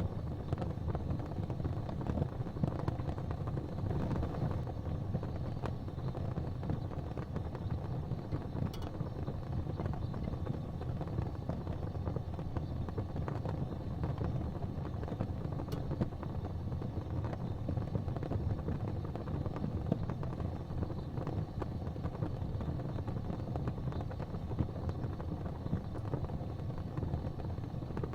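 Gas fireplace flames burning with a steady, low rumbling rush, with a couple of faint clicks.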